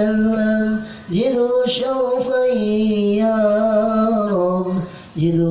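A man chanting an Arabic prayer in long, drawn-out melodic phrases, pausing briefly for breath about a second in and again near the end.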